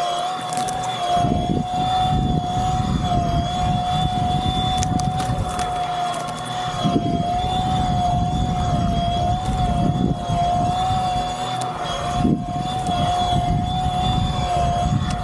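Electric eFoil motor (Flite Ultra) whining at a steady pitch that wavers slightly as the rider carves, over the low rush of wind and water on the microphone.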